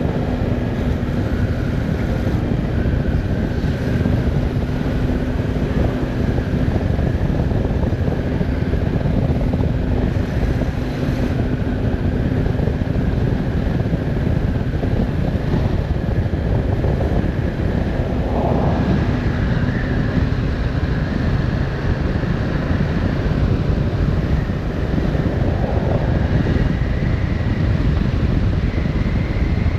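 Yamaha Tracer 7 motorcycle's 689 cc parallel-twin engine running while riding, with heavy wind rush on the microphone. The engine note holds steady at first, then changes pitch a few times in the later part.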